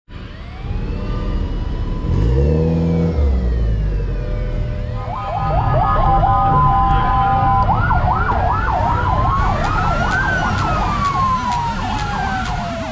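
Several sirens sounding together, as fitted to cars in a parade: from about five seconds in, a fast warbling siren and a slower rising-and-falling wail over steady horn-like tones. Car engines run underneath.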